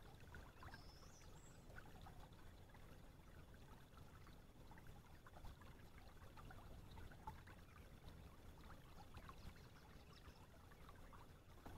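Near silence: faint trickling of calm river water around a kayak, with scattered tiny ticks and a brief faint high chirp about a second in.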